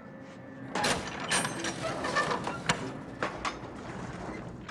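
A truck trailer's rear door being unlatched and rolled open: a loud metallic clatter and rattle with several sharp clanks, starting about a second in and lasting about three seconds.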